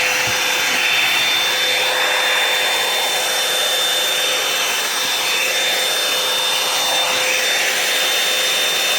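Revlon One Step Hair Dryer and Volumizer hot-air brush running steadily on its high setting: a rush of blown air with a steady high motor whine.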